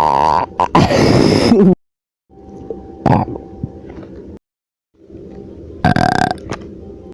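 A person burping: three separate burps from back-to-back clips, each cut off into a moment of dead silence, over a steady background hum. The first is long and loud with a falling pitch near its end, the second short, and the third somewhat longer.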